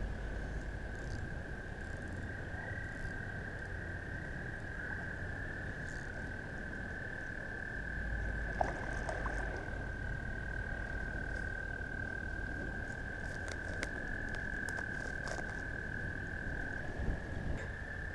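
A chorus of toads trilling: long, steady trills overlapping without a break, the pitch stepping slightly as one caller takes over from another.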